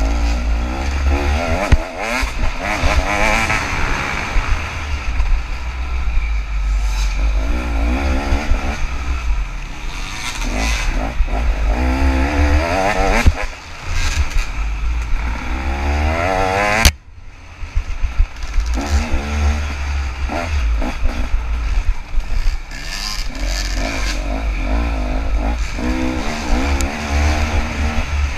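KTM 300 two-stroke dirt bike engine being ridden hard on a woods trail, its revs climbing and falling again and again. There is a sharp knock about two-thirds of the way through.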